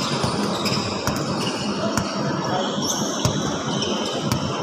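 Basketball bouncing on a gym court floor, a few irregular thumps over a steady background hum of the hall.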